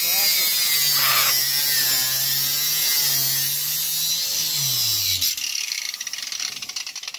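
A handheld power tool cutting, with a loud high hiss over a steady motor tone; about five seconds in it is let off and winds down, falling in pitch, and a quick run of faint clicks follows.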